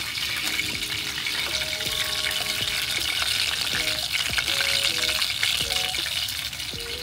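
Green vegetables deep-frying in hot oil in a small pot, a steady crackling sizzle, as they are turned with chopsticks.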